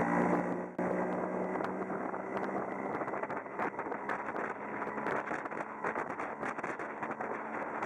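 Small boat's outboard motor running under way, with wind buffeting the microphone and many irregular short knocks. A louder engine sound cuts off abruptly under a second in.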